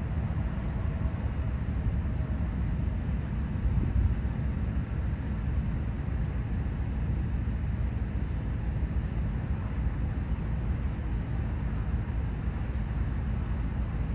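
Union Pacific GE diesel locomotives idling: a steady, low engine sound that holds even throughout.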